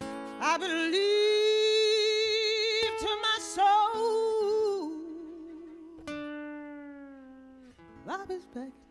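A woman singing long wordless blues notes with vibrato over guitar: a long high note, then a lower held note, and a quick upward slide near the end.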